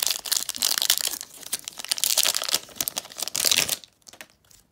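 Foil wrapper of a Pokémon TCG Hidden Fates booster pack crinkling and tearing as it is ripped open by hand. The crackling stops a little before four seconds in.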